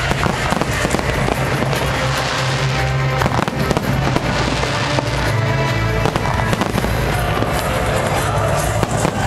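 Fireworks display going off continuously, with many overlapping bangs and crackles, while music plays loudly underneath.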